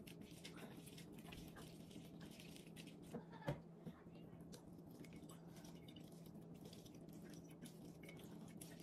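Orange halves pressed and twisted by hand on a plastic manual citrus reamer: faint wet squishing and light plastic clicks, with one louder knock about three and a half seconds in.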